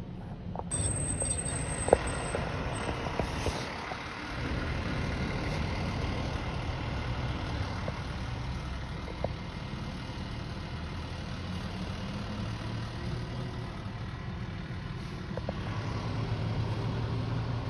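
A car running, heard from inside its cabin: a steady low rumble with a sharp click about two seconds in.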